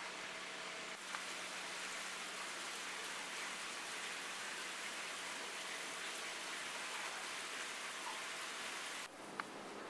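Steady rushing hiss of running water, like water pouring into a stone basin. It breaks off abruptly near the end.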